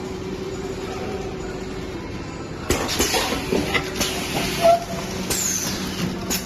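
Straw counting and packing machine running with a steady hum. From about three seconds in, irregular mechanical clicks and clatter join it, along with short bursts of hiss.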